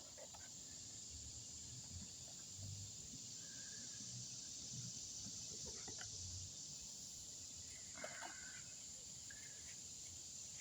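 Steady high-pitched drone of insects such as crickets, with a few faint brief sounds scattered through.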